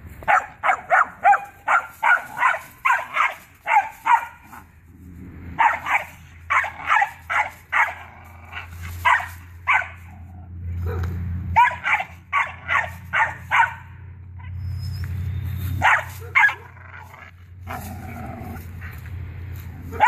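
Belgian Malinois puppy barking in quick runs of sharp, high yaps, about three a second, with short pauses between runs: protective barking at an approaching stranger.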